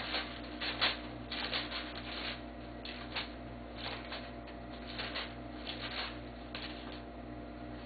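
Bible pages being leafed through, a string of short, irregular papery flicks and rustles over a steady low electrical hum.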